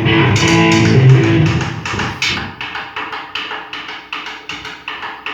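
Music: sustained pitched tones for about the first two seconds, then a steady percussive beat of about four strikes a second.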